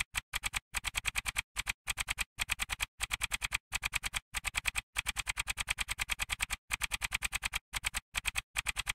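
Typing sound effect: rapid clicks, about nine or ten a second, in short runs with brief pauses between them, one click per letter as text types out on screen.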